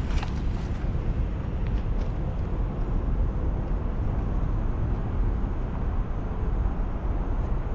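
Wind noise on the microphone: a steady low rumble that swells and dips, with a few faint clicks in the first two seconds.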